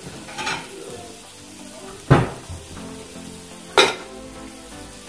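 Food sizzling on a Cooks electric indoor griddle. Two sharp knocks cut through it, one about two seconds in and a brighter click near four seconds in.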